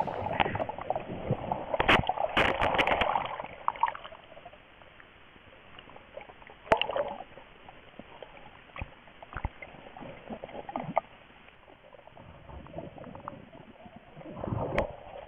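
River water splashing and sloshing as a bear wades and fishes, in irregular bursts. The splashing is busiest for the first few seconds, with a sharp splash about seven seconds in and more splashing near the end.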